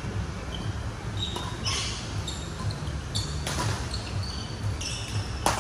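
Badminton rally on an indoor court: sharp cracks of rackets striking the shuttlecock, short squeaks of court shoes and footfalls, over a steady low hum. The loudest strike comes near the end.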